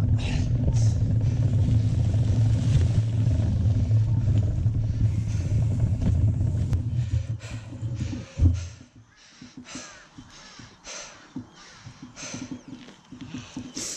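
A steady low rumble with a deep hum cuts off with a sharp thump about eight and a half seconds in. After it come scattered light clicks and knocks.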